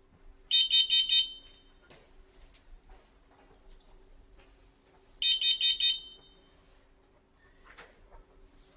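Aziz carbon monoxide alarm sounding in alarm: a high-pitched electronic beeper gives four quick beeps, pauses about four seconds, and gives four more. Four beeps and a pause is the standard carbon monoxide alarm pattern.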